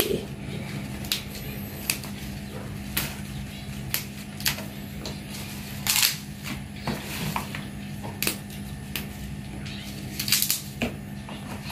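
Daun mendai leaves being plucked off their stems by hand, making irregular sharp snaps and crackles roughly once a second, over a steady low hum.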